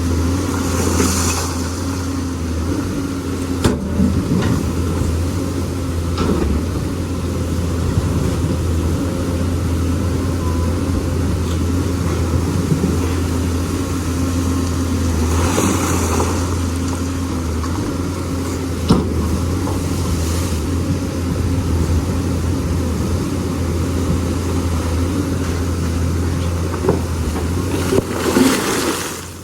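Lonking excavator's diesel engine running steadily while it works. A few sharp knocks and three short rushing bursts of noise come through: near the start, in the middle and near the end.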